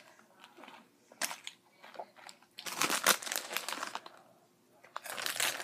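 Plastic Hot Cheetos chip bag crinkling as a hand reaches into it, loudest in a dense crackly burst about three seconds in, with a few crunches of chips.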